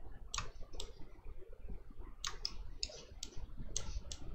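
Sharp clicks of a computer mouse and keyboard: two near the start, then a quicker run of about eight from about two seconds in.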